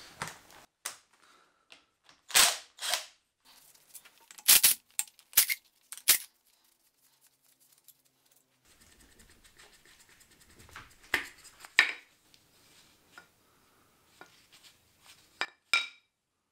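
Sharp metallic clicks and short clinks from hand tools and bolts, a few seconds apart, as screws are taken out of a VW 1.9 diesel engine block on a stand. Faint handling and rubbing is heard between them.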